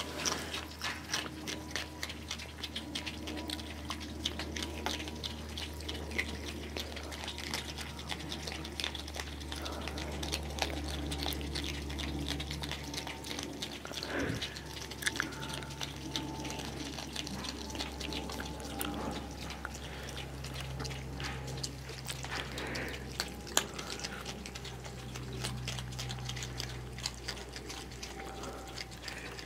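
Several opossums chewing and smacking on mixed food from a dish: a dense run of quick, wet, irregular clicks, over a steady low hum.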